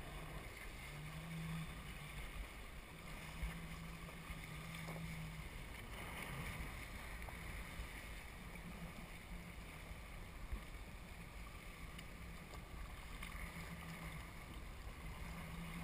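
Jet ski engine running, a low steady hum that fades in and out, under a haze of water and wind noise.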